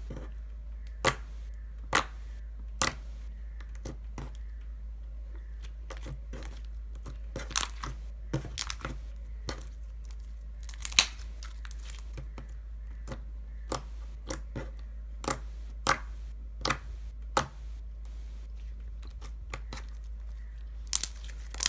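Glossy clear slime being poked, stretched and folded by hand, giving irregular sharp pops and clicks about once a second.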